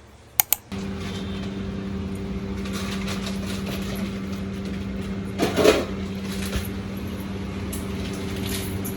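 Two sharp clicks, then a small electric appliance motor switches on and runs with a steady hum, with a brief louder rustle or clatter about five and a half seconds in.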